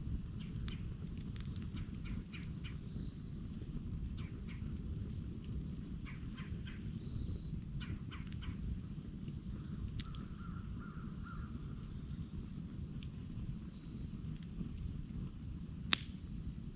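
Campfire burning with a steady low rush, irregular small crackles and snaps from the burning wood, and one sharp, loud pop near the end.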